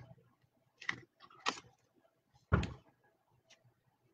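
A few short clicks and rustles of trading cards being handled, with one louder dull knock about two and a half seconds in.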